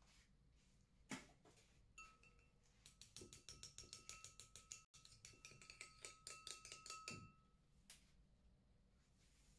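A metal spoon beating an egg glaze in a small glass bowl: a single knock about a second in, then a quick run of clinks against the glass, about five a second, for about four seconds, with the bowl ringing faintly.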